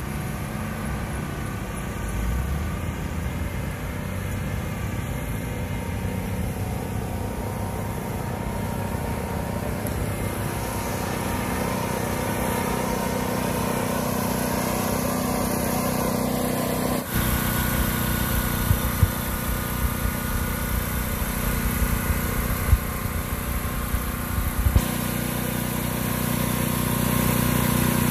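Road traffic and a small engine running steadily. About two-thirds of the way in the sound changes abruptly, and from then on the steady hum of the portable generator beside the food truck is stronger.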